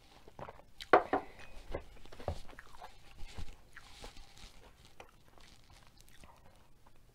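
Close-miked sounds of coffee drinking and table handling: a sip from a ceramic mug, then a few sharp clicks and knocks between about one and three and a half seconds in as the mug is set down, then faint ticks of fingers picking at food on a tray.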